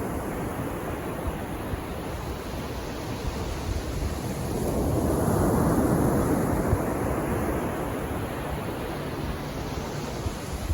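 Sea waves washing onto the beach, a steady surf hiss with one wave building louder about halfway through and then ebbing.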